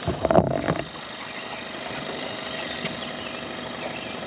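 Boat motor idling steadily, with a short clatter of knocks in the first second.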